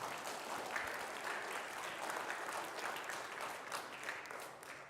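An audience of children and adults clapping, fading out near the end.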